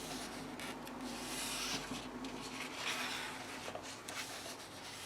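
Paper pages of a coloring book being turned and handled: soft rustling and sliding of paper, with a couple of louder swishes near the middle.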